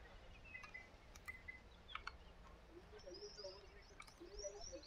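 Faint open-air ambience with distant birds chirping in short high calls, more of them in the second half, and a few faint ticks.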